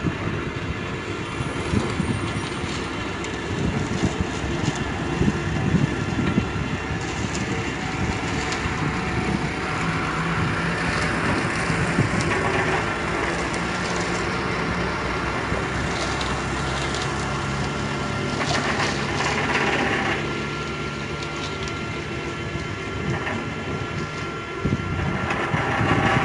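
Spantech SRB 52 spiral ring bending machine running, its rollers drawing a steel rod through and bending it into a spiral piling ring. It makes a steady mechanical running sound with frequent clicks and knocks of the steel, and a low hum joins in partway through.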